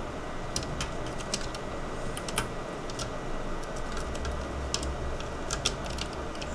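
Small irregular clicks and ticks of a copper heat-pipe heatsink being seated and pressed onto a Dell Latitude D630 motherboard's processor and graphics chip, over a low steady hum.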